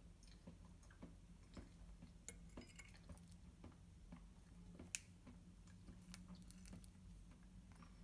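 Faint soft squishing of a fork cutting down through a slice of marshmallow-topped sweet potato casserole, with light scattered clicks and one sharp click about five seconds in as the fork meets the plate, over a low steady hum.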